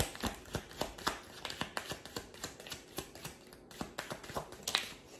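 A deck of tarot cards being shuffled by hand: a quick, uneven run of light card clicks and slaps, several a second.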